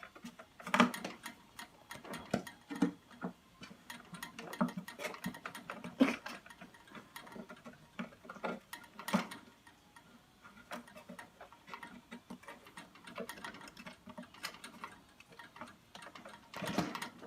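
Irregular light clicks and taps from a kitten playing with and chewing at an object, with a few louder knocks.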